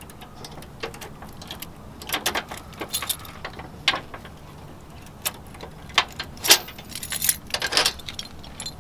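A ring of keys jangling, with sharp metallic clicks and rattles from a keyed Master Lock trailer coupler lock being worked open and handled at the hitch. The clicks come irregularly, busiest about two seconds in and again in the last few seconds.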